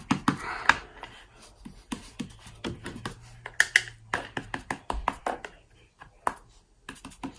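Fingertips dabbing on an ink pad and pressing onto paper: a quick, irregular run of soft taps, several a second, thinning out near the end.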